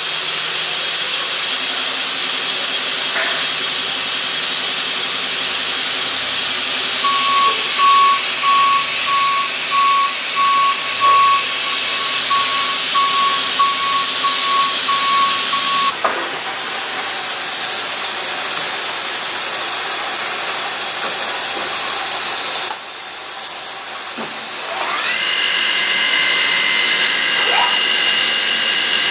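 Bridgeport Torq-Cut TC4G CNC vertical machining centre homing its axes to find its reference points, with a steady mechanical hiss. A high beep repeats about one and a half times a second from about seven to sixteen seconds in. Near the end a whine rises in pitch and settles into a steady high whine.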